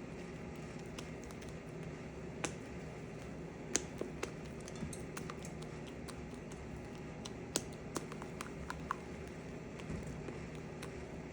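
Light clicks and taps of kitchen utensils and containers being handled: a few sharp, isolated ticks scattered over a steady low background noise.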